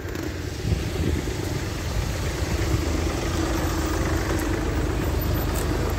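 A car engine running at a steady idle, under a low rumble.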